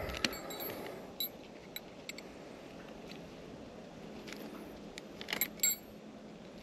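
Light metal clinks from the steel hooks of a ladder-section strap being handled, a few scattered clicks with a short cluster of louder clinks about five and a half seconds in.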